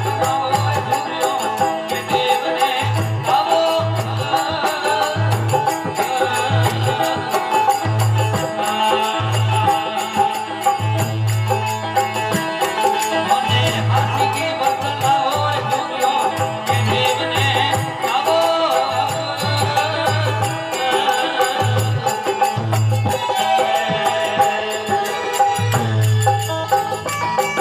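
Instrumental passage of a folk devotional song: an organ plays a melody over held notes, with repeated low drum beats and a light rattling percussion throughout.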